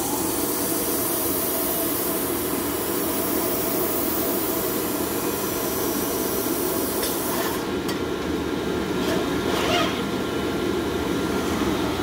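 Vacuum of a DEK Horizon 02i stencil printer's under-stencil cleaner spooling up and running through the vacuum stroke: a steady loud rushing hiss. The highest part of the hiss falls away about seven and a half seconds in, and a few faint mechanical knocks follow.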